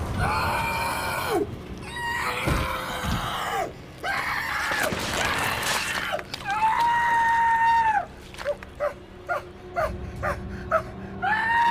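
A person screaming in agony: a series of long, high, drawn-out screams, broken about two thirds of the way through by short, gasping whimpers, then another scream near the end.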